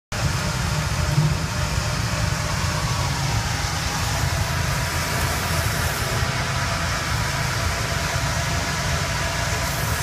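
Sawmill machinery running steadily while a log on the carriage is cut by the saw.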